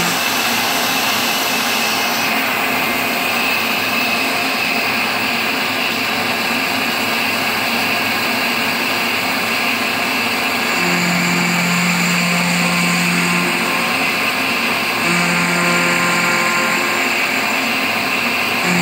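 CNC milling machine's end mill cutting a pocket in cast iron: a steady, dense cutting noise. A low hum joins it twice in the second half.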